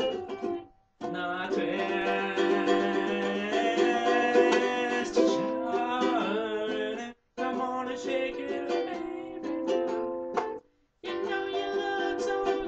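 Ukulele strummed in chords, the sound cutting out abruptly three times for a moment.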